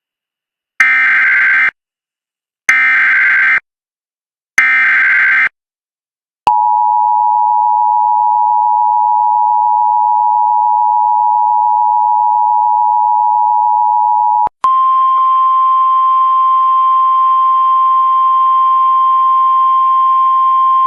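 Emergency Alert System alert sequence: three short bursts of SAME digital header data about a second apart, then the two-tone attention signal held steady for about eight seconds, then a single steady NOAA Weather Radio warning alarm tone for about seven seconds, introducing a flash flood warning.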